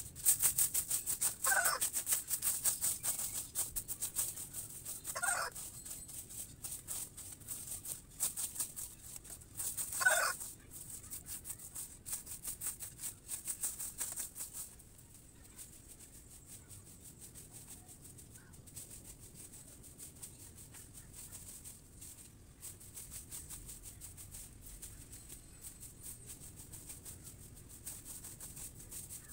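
Domestic chicken calling three times in the first ten seconds, short calls a few seconds apart. Under them runs a dense high crackle that eases off about halfway through.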